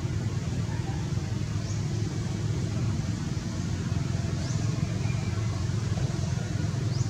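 Steady low outdoor rumble, with a few faint, short high chirps about every three seconds.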